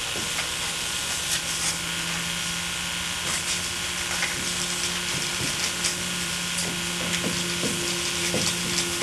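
Marker scribbling on a whiteboard in short scratchy strokes, over a steady hiss and a low hum.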